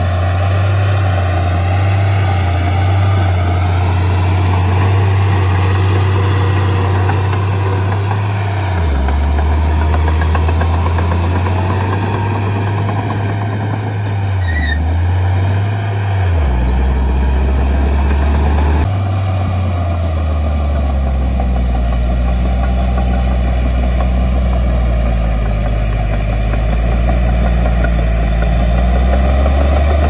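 Komatsu D51P crawler bulldozer's diesel engine running steadily as it pushes earth, its deep note dipping briefly about nine and fifteen seconds in and shifting abruptly a little before halfway through.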